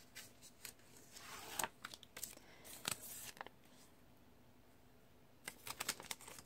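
Faint rustling and crinkling of paper sticker sheets and a floral washi sticker strip being picked up and handled, with small taps. It goes quiet for about two seconds in the middle, then a quick run of small clicks and crackles near the end as the strip is worked with the fingers.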